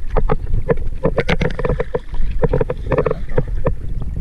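Small waves slapping and knocking against the hull of a wooden outrigger fishing boat in quick, irregular knocks, several a second, over a low rumble of wind on the microphone.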